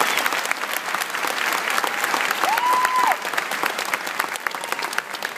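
Large audience applauding, with a single held whistle about two and a half seconds in. The clapping thins out near the end.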